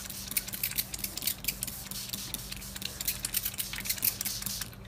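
Trigger spray bottle spritzing water onto a black paper napkin: a quick run of short squirts, several a second, that stops shortly before the end.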